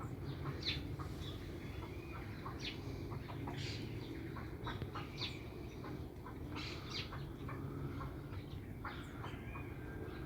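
Dawn bird chorus: many birds giving short, scattered chirps and calls, over a steady low rumble.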